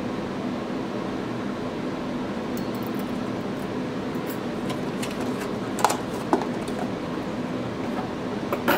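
A steady background hum, with a few light clicks and taps from wire light hangers and their cardboard box being handled, about six seconds in and again near the end.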